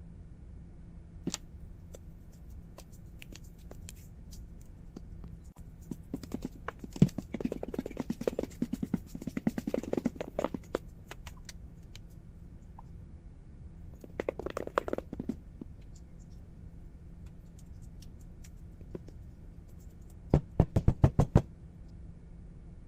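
Kitchen utensils scraping and tapping in three short spells of quick clicks over a low steady hum, ending in a rapid run of sharp taps.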